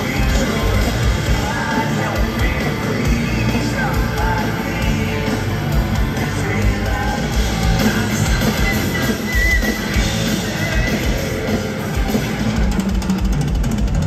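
Live rock band playing loud, with yelled vocals over the music.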